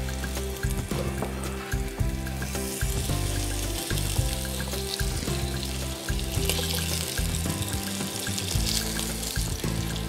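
Rabbit pieces sizzling in oil in a casserole as they are browned over gentle heat. The sizzle grows louder a couple of seconds in, over background music with sustained low bass notes.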